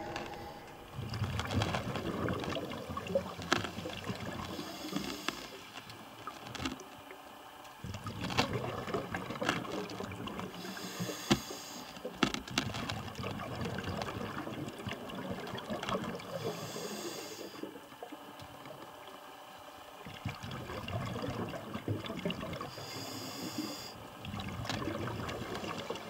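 Underwater recording of a scuba diver's breathing: a hiss from the regulator on each inhale, four times about six seconds apart, and between them the crackling rush of exhaled bubbles, with scattered sharp clicks.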